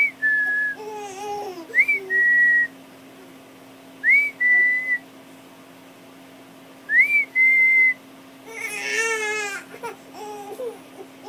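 A person whistling a short two-part call four times: a quick rising-and-falling note followed by a held steady one. In between, a baby fusses and whines, most strongly about nine seconds in.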